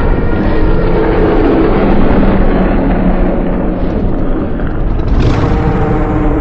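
Custom monster sound effect: a long, harsh, continuous noise over a low rumble, with a few held tones inside it, swelling brighter about five seconds in.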